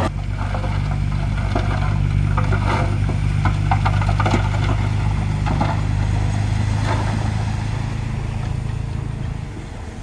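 Heavy diesel engine of an earthmoving machine running steadily, with metallic clanks and rattles through the first several seconds. The engine sound fades near the end.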